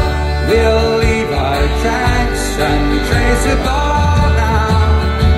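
Live folk-rock band playing: strummed acoustic guitar, bass and drums, with a man singing the melody at the microphone.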